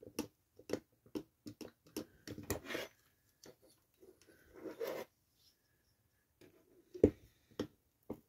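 Screwdriver turning a Phillips screw in the metal chassis of a diecast toy truck, with the model handled: irregular light clicks and scrapes, and a louder click about seven seconds in.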